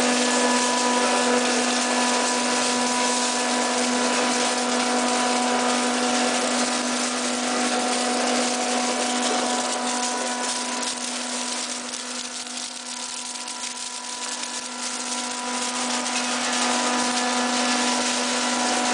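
Flake ice machine running: a steady mechanical hum with a strong constant tone and a broad hiss as the scraper turns inside the evaporator drum, easing a little about two-thirds of the way through.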